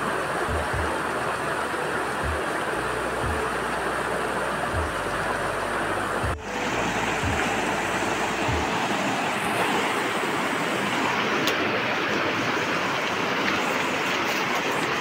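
Fast mountain river rushing over rocks in rapids: a steady, even rush of water, with a few low thumps on the microphone in the first half.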